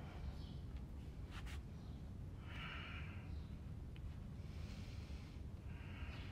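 A woman breathing audibly in and out while holding downward dog: several soft, hissy breaths over a steady low rumble, with a couple of short clicks a little over a second in.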